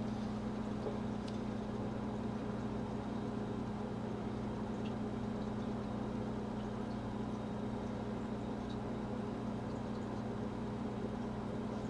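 Steady low hum of room tone, with a few faint ticks of the tomahawk being handled.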